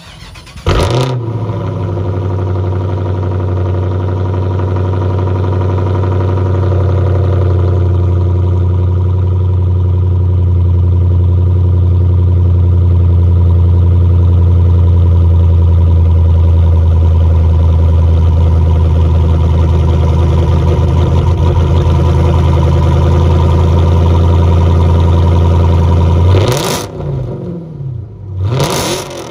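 Dodge Charger R/T's 5.7-litre HEMI V8 cold-starting: it cranks briefly and catches about a second in, then runs at a loud, steady fast idle through the dual exhaust. Near the end the steady note breaks off and the sound turns quieter and uneven.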